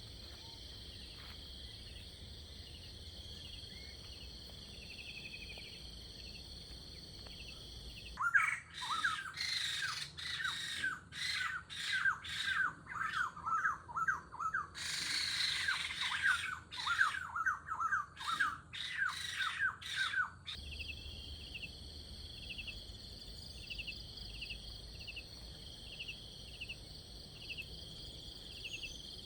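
A steady high insect chorus trills throughout. About eight seconds in, a loud run of bird calls cuts in abruptly: short falling chirps, several a second. It stops just as suddenly about twelve seconds later, leaving the insects.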